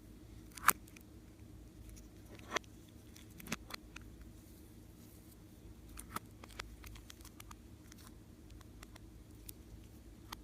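Slime being worked by hand, giving scattered small clicks and sticky pops, the loudest about a second in, over a faint steady hum.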